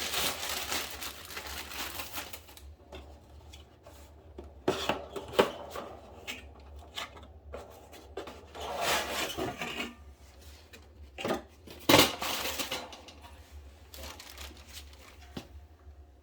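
Hands handling parts and packaging: scattered rustles, clicks and light knocks, with one sharp knock about twelve seconds in. A steady low hum runs underneath.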